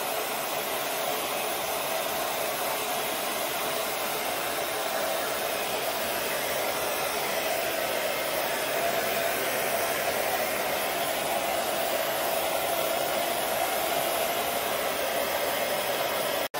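Electric heat gun running steadily, blowing hot air: an even rushing hiss with a faint hum in it.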